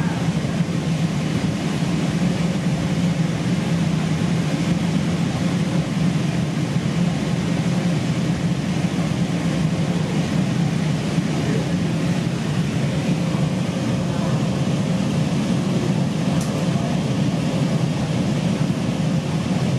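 CTA CRRC 7000 Series 'L' car running along the track, heard from inside the car: a steady low rumble of wheels on rail with a faint steady tone above it.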